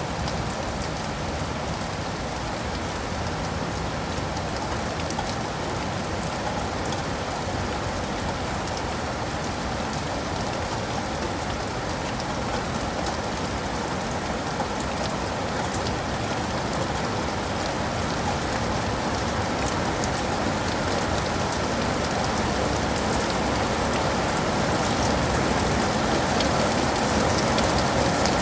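Steady rain falling on leaves and pavement, a dense even hiss with scattered drop ticks, growing slightly louder toward the end.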